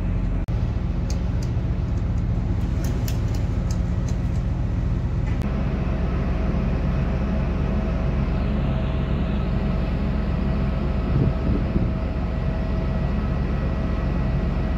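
Steady low drone of a ship's engines and machinery heard on deck, a deep hum with a fainter higher whine over it, changing slightly about five seconds in.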